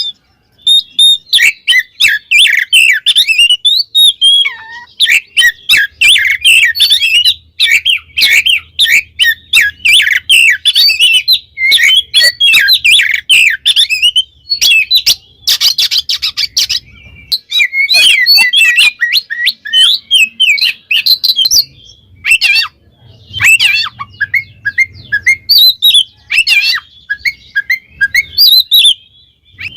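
Oriental magpie-robin (kacer) singing loudly in quick, varied phrases of whistles, trills and chattering notes, coming in bursts with short pauses between them. This is the 'ngeplong' song, a challenge call to rival males that works them up.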